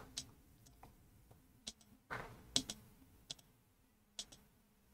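Computer mouse clicking: about half a dozen faint, separate clicks spread out with pauses between them.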